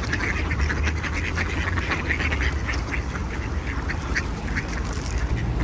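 A crowd of ducks quacking, many short overlapping quacks with no set rhythm, over a steady low background rumble.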